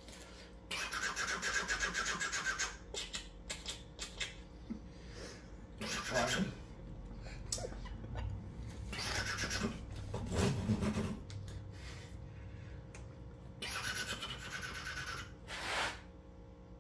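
A man imitating a Harley-Davidson motorcycle engine with his mouth: breathy, hissing engine noises in four or five bursts of a second or two, with short pauses between.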